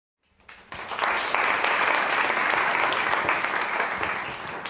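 A small audience applauding. The clapping swells in during the first second, holds steady, and tapers off near the end.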